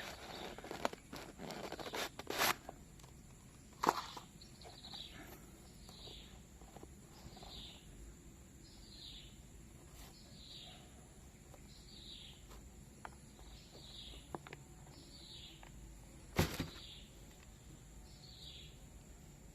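Quiet handling noise, rustling with a few sharp clicks and knocks, as shoes and packaging are handled. Through it a short, high, falling chirp repeats evenly about every second and a half, and a single louder knock comes near the end.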